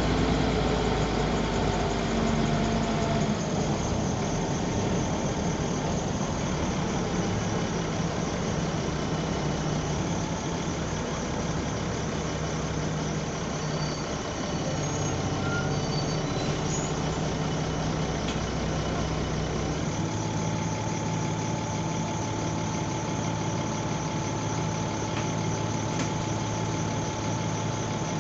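A bus's diesel engine running, heard from the back seat inside the cabin. Its steady note shifts about 3 to 4 seconds in and again about 20 seconds in, when a new, steadier hum settles in.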